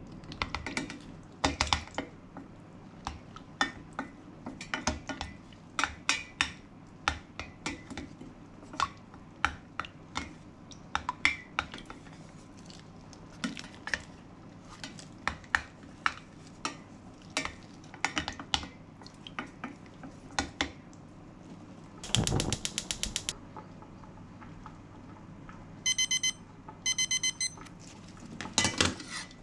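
A plastic spatula tapping and scraping against a stainless steel bowl as fermented bean curd is spread over a slab of chashu pork, in a long run of short, irregular clicks. About 22 seconds in there is a brief rapid rattle, then a digital kitchen timer beeps in two short bursts.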